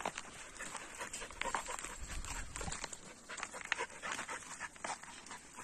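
A dog panting, with scattered short crackles and clicks.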